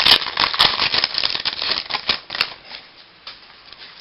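A pack of baseball cards being torn open, its wrapper crinkling and rustling for about two and a half seconds, then fainter clicks and rustles as the cards are handled.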